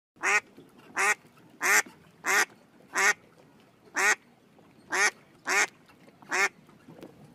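Duck quacking: nine short, nasal quacks, roughly one every two-thirds of a second, with a brief gap before the last few.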